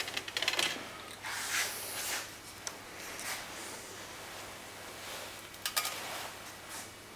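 Small steel parts and fittings of an injector clamping device being handled: several light metallic clicks in the first second, a brief scrape around a second and a half in, then scattered single clicks and a quick pair of clicks near the end.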